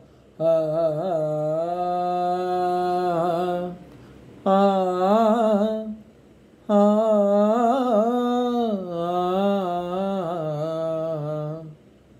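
A man's unaccompanied voice humming a wordless melody in three long phrases with short breaths between, the pitch bending and wavering through each phrase.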